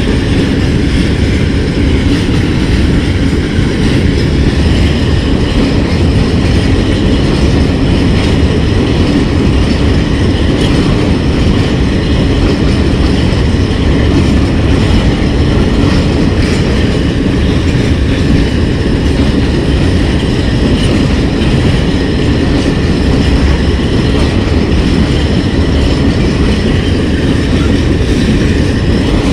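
A freight train of phosphate hopper wagons rolling past close by: a steady, loud rumble of steel wheels on the rails.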